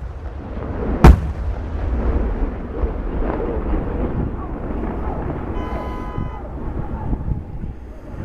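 A loud firework shell bursting once about a second in, followed by a long rumbling echo and a steady low rumble; a brief steady whistle-like tone sounds near the middle.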